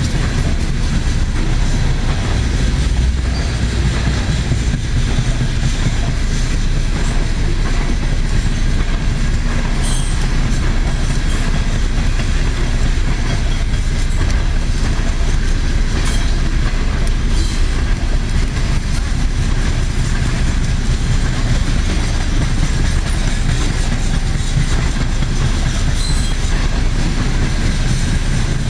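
Freight train of refrigerated boxcars rolling past: a steady rumble of steel wheels on the rails, with a few faint clicks.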